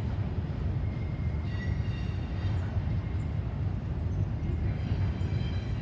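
Double-stack intermodal container cars rolling over a steel girder bridge, making a steady low rumble. Faint high squeals come in about two seconds in and again near the end.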